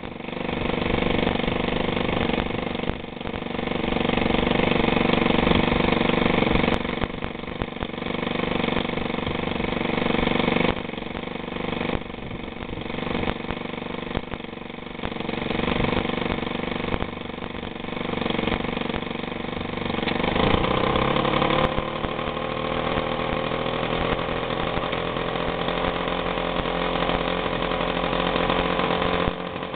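Piaggio Ciao Px moped's small single-cylinder two-stroke engine idling steadily at about 1450 rpm. About two-thirds of the way through, the revs rise smoothly and the engine settles into a faster steady run of around 4000 rpm.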